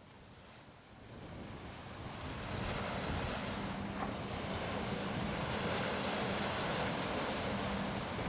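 Sea waves and wind washing steadily, fading in over the first two seconds to an even rush, with a faint low hum underneath.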